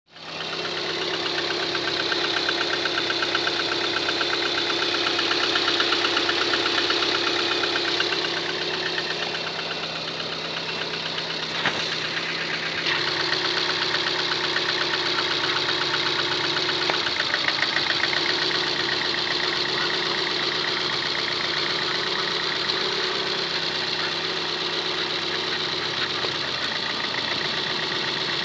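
Car engine idling with a fast, even tapping from the top end. The owner suspects a knocking hydraulic valve lifter (lash adjuster).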